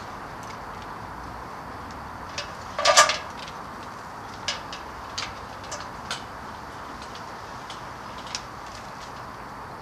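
Scattered light clicks and knocks, with one louder clank about three seconds in, over a steady outdoor background hiss: the sounds of handling on the aluminium ladder and saw up in the tree. The electric chainsaw is not running.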